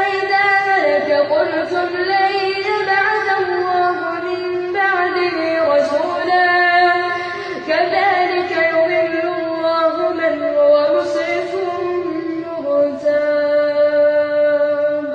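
Solo voice reciting the Quran in melodic tajwid style, holding long, ornamented notes that glide between pitches, with a short break at about seven and a half seconds.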